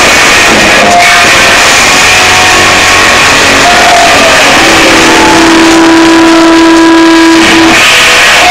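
Loud live rock music led by a distorted electric guitar, with one long held note in the middle.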